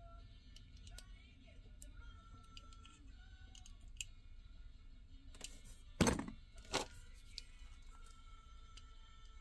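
Faint handling noise of a small diecast toy ambulance turned in the fingers: a few light clicks, then two louder knocks about six and seven seconds in.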